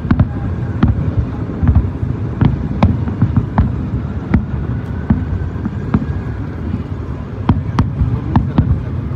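Aerial fireworks shells bursting: an irregular run of sharp bangs and cracks, about two a second, over a continuous low rumble of distant booms.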